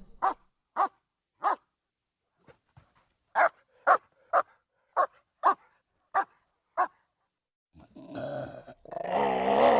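A dog barking in single sharp barks, about ten of them spaced roughly half a second apart, then a longer, rough growl near the end.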